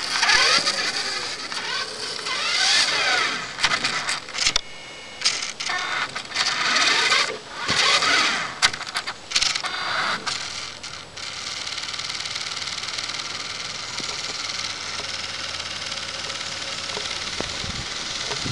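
Small electric motor and gears of an Xmods radio-controlled Hummer H2 whining as it revs up and down in short bursts, with clattering knocks. About eleven seconds in it stops, leaving a steady hiss.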